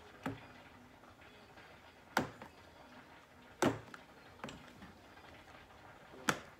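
Quiet room tone broken by five short, sharp clicks or taps, spaced one to two seconds apart.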